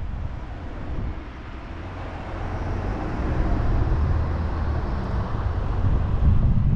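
Car driving, heard from a camera on the outside of the car: road and tyre noise with wind buffeting the microphone. It eases about a second in, while the car slows into a roundabout, and builds again as it speeds up.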